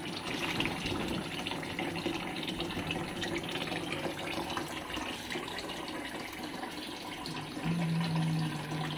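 Kitchen tap running steadily into a sink and over a bowl of fish being washed. A low, steady hum joins for about a second near the end.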